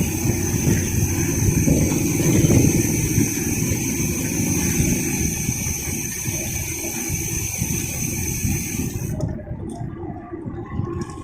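Cicadas buzzing in one steady, high, hissing drone that cuts off abruptly about nine seconds in, over the continuous low rumble of a mountain bike rolling along the road.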